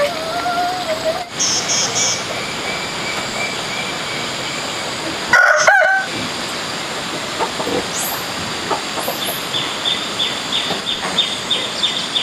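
A rooster crowing, once at the start and again more loudly about halfway through. Small birds chirp over a steady background hiss, with a quick run of chirps near the end.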